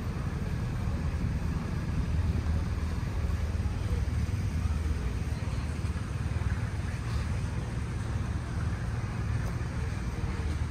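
Steady low rumble of background street traffic.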